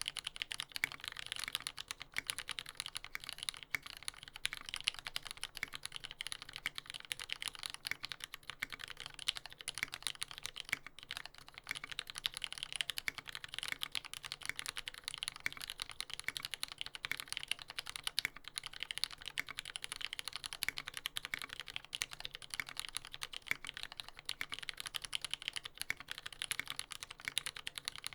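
Continuous fast typing on a TX75v2 mechanical keyboard with a brass plate and lubed Retooled Black linear switches: a dense, unbroken stream of keystroke clacks.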